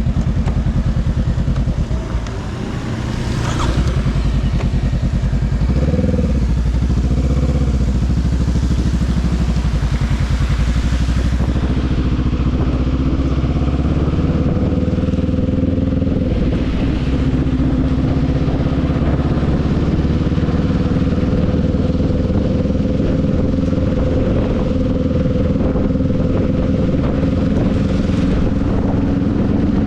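Motorcycle engine running on the move, its pitch rising and falling a few times about six to eight seconds in, then holding a steady note, over a hiss of road noise.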